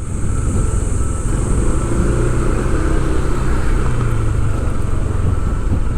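Motor vehicle running steadily with a constant low engine rumble and road noise.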